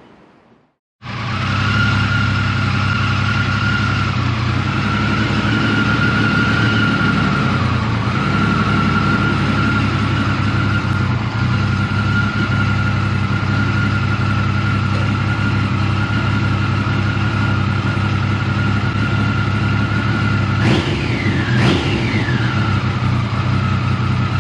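The Triumph Sprint 900's three-cylinder engine idles steadily; it comes in abruptly about a second in. Near the end it is blipped twice in quick succession, each rev rising and falling back to idle.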